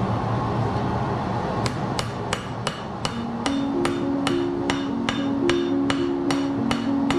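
Hand hammer striking a kukri blade being forged on an anvil: a steady run of ringing blows, about three a second, starting a little under two seconds in.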